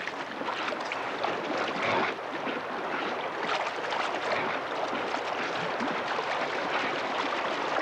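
A shallow rocky stream rushing steadily, with splashing as dogs run through the water.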